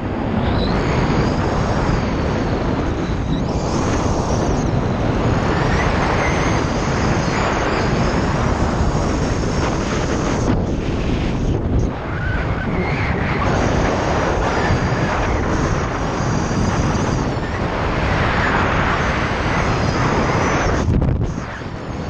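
Wind buffeting the camera's microphone as a skydiver descends under an open parachute: a loud, steady rush of airflow with brief dips about halfway through and near the end.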